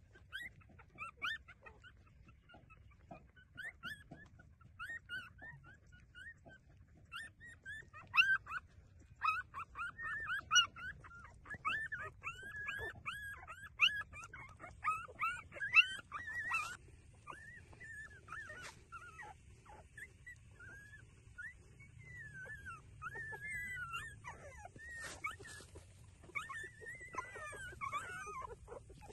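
Litter of newborn puppies squeaking and whimpering while nursing: many short, high squeaks overlapping, busiest and loudest in the middle stretch.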